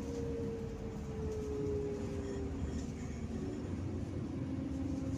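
Inside a moving city bus: steady low engine and road rumble, with a whine that slowly drops in pitch over the first two and a half seconds.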